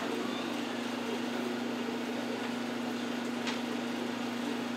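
Steady machine hum with one constant low tone over a faint hiss, and a faint click about three and a half seconds in.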